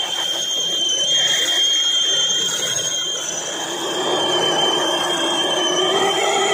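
Electric motors of radio-controlled scale crawlers whining steadily at a high pitch, with a lower drone that grows louder about four seconds in.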